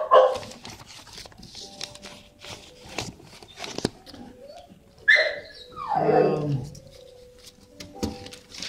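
Shelter dogs vocalizing: a high yelp sliding down in pitch about five seconds in, then a longer, lower call that also falls. Scattered sharp clicks from handling run through the sound.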